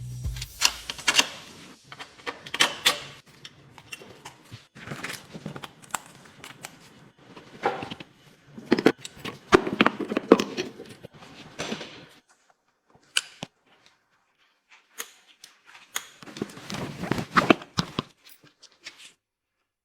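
Bursts of clicks, taps and clatter, as of hand tools and metal parts being handled during workshop assembly work, with a lull about twelve seconds in before one more burst.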